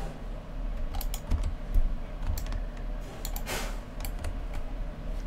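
A dozen or so irregular clicks of a computer mouse and keyboard, working a 3D modelling program, over a steady low electrical hum. A short soft rush of noise comes about three and a half seconds in.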